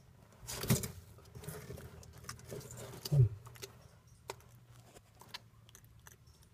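Bearded dragon eating a large tomato hornworm: scattered soft clicks and crunches of chewing. There are two louder thumps, one near the start and one about three seconds in.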